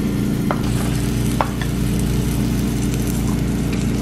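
Meat sizzling on a tabletop Korean barbecue grill pan: a steady frying hiss over a steady low hum, with two light clinks, about half a second and a second and a half in.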